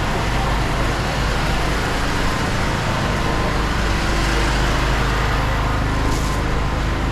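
Steady road traffic noise with the low rumble of vehicle engines running.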